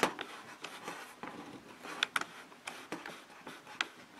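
Faint handling noise from a cardboard chocolate bar box held in the fingers: a few small clicks and light rustles, the sharpest click right at the start.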